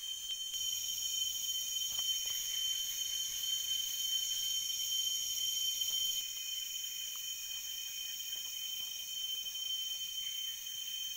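Chorus of tropical forest insects shrilling steadily in several high tones, one voice joining about half a second in and another dropping out about six seconds in, with a few faint clicks.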